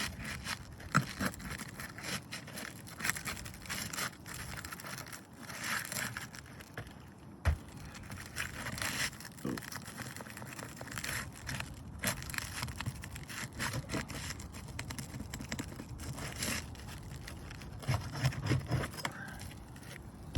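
Asphalt roof shingles being pried up by hand: irregular scraping and crackling with scattered sharp clicks as the shingles are worked loose to reach the nails underneath.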